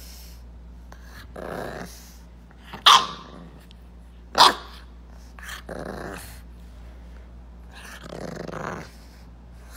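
English bulldog puppy growling in a string of short grumbles, with two sharp, louder little barks about three seconds in and again a second and a half later.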